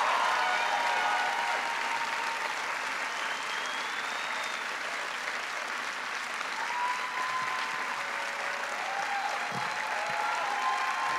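Audience applauding steadily after an applause line, with a few voices cheering over the clapping at the start and again in the second half.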